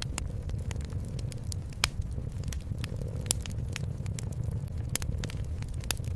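Wood fire crackling with irregular sharp pops, a few louder than the rest, over a steady low cat purr.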